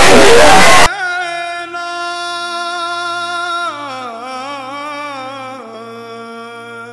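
Music overlay of a singing voice: a very loud, distorted passage cuts off suddenly about a second in, giving way to a long wavering sung note that slides down in pitch twice and slowly fades.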